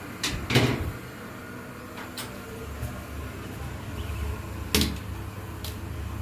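A handful of sharp knocks and clatters of hard objects being handled, the loudest about half a second in and another strong one just before the end, over a low steady hum.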